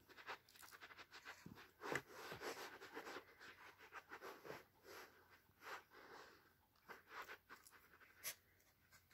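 Faint scratching, scuffling and soft panting from a three-and-a-half-week-old puppy nosing and mouthing at bare toes on carpet, a string of small irregular clicks and rustles.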